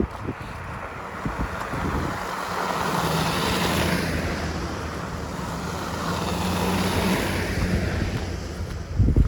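Motor vehicles passing on the street: a rushing tyre noise with a steady low engine hum, swelling twice and fading near the end.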